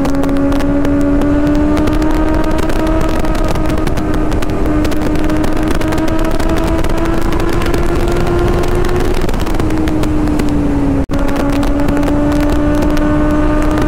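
Kawasaki Ninja ZX-6R's 636 cc inline-four engine running hard at highway speed, its note climbing slowly and then dipping and levelling off about ten seconds in, with wind noise on the microphone. There is a momentary dropout a second later.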